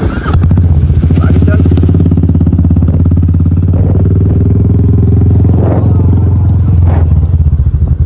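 Motorcycle engine running loud and steady at close range, then falling away near the end.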